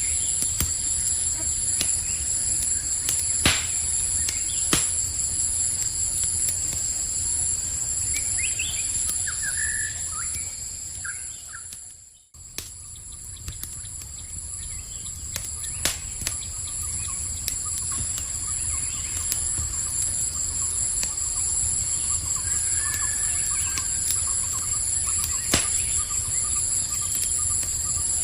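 Campfire crackling with scattered sharp pops, over a steady high chorus of crickets, with a few short chirps now and then. About twelve seconds in, the whole sound fades out for a moment and comes back.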